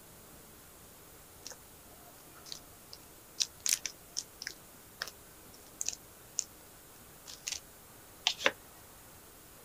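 Light crinkles and clicks from clear plastic food bags being handled and filled with fruit pieces: a scattering of short, sharp ticks, with a slightly heavier pair of taps near the end.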